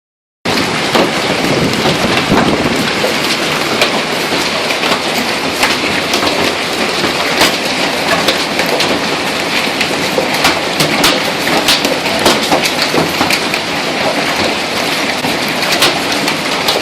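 Hail pelting down: a loud, dense clatter of countless small impacts with sharper single strikes scattered through it, starting abruptly about half a second in.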